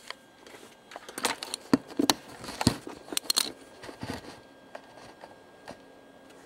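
Camera handling noise: a quick run of clicks, knocks and rustles as the camera is picked up, moved and set down, thinning to a few faint ticks.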